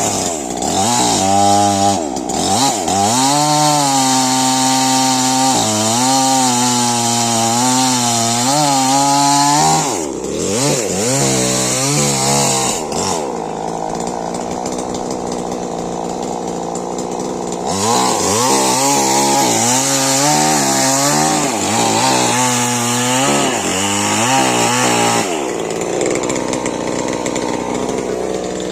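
Stihl MS 881 two-stroke chainsaw running hard, its engine speed rising and dipping again and again, with two calmer stretches where it drops back: about halfway through and near the end.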